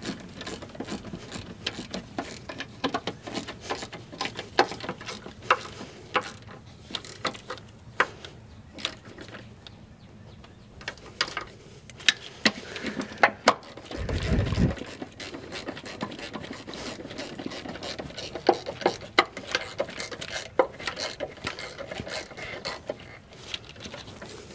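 Ratchet wrench clicking in quick, uneven runs as the top mounting bolts of a semi truck's suspension air bag are tightened, with a short low rumble about halfway through.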